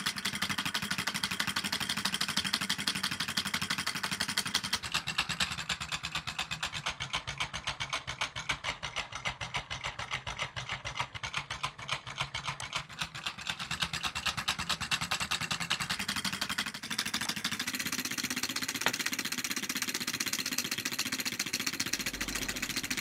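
Homemade six-cylinder solenoid engine running: copper coils, pulsed by a driver circuit, pull magnet pistons in syringe cylinders to turn a bent-wire crankshaft. It makes a fast, even rhythmic clatter of clicks, whose character shifts about 5 seconds in and again near 17 seconds.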